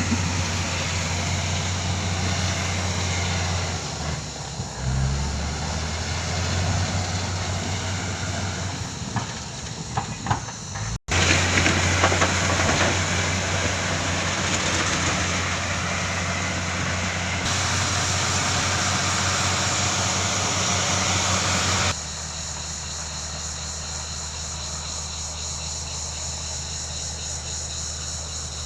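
Excavator's diesel engine running steadily, with a few sharp clanks about a third of the way in; the sound cuts off abruptly and resumes, then drops suddenly to a quieter, even engine hum for the last few seconds.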